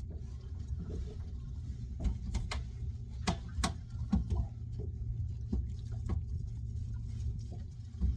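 A steady low hum, typical of a fishing boat's engine, with scattered sharp clicks and knocks over it.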